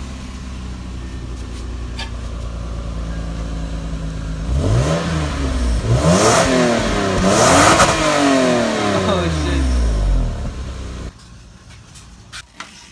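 Lexus IS300's 2JZ-GE inline-six running through its stock exhaust with the factory muffler still on. It idles steadily, then is revved a few times from about four and a half seconds in, each rev rising and falling in pitch. The sound cuts off abruptly about eleven seconds in.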